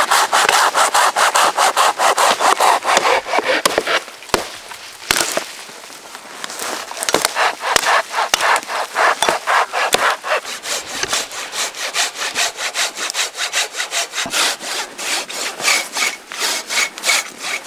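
Silky BigBoy folding hand saw cutting through a fallen conifer trunk in quick back-and-forth strokes. The sawing eases briefly about four seconds in, then carries on at a steady rhythm.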